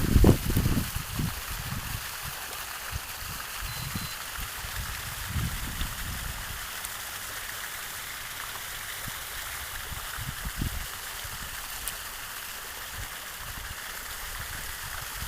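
Steady hiss of running water, with a few loud low thumps in the first second and fainter ones later.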